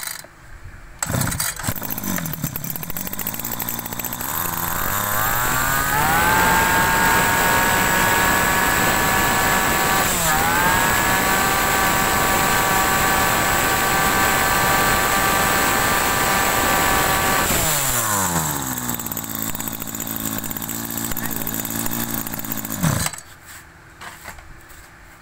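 Maru 320 32cc two-stroke brush cutter engine started, idling, then throttled up to a high steady speed for about eleven seconds, with a brief dip partway through. It drops back to idle and is switched off a few seconds before the end.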